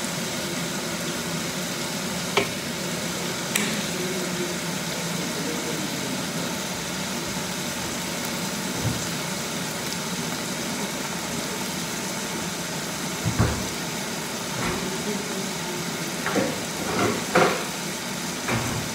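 Food sizzling steadily in a pan over a constant background hum, broken by a few sharp clicks and, near the end, a cluster of knocks as a fridge is opened.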